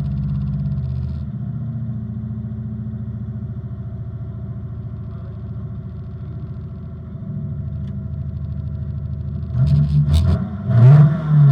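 Opel Manta rally car's engine running steadily at low revs, then about nine and a half seconds in revved hard twice, its pitch rising and falling each time.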